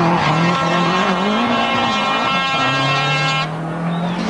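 Toyota Celica GT-Four ST165's turbocharged four-cylinder engine running hard, its pitch rising and falling with the throttle, dropping about two and a half seconds in and then holding steady. A steady high whine runs alongside it and cuts off about three and a half seconds in.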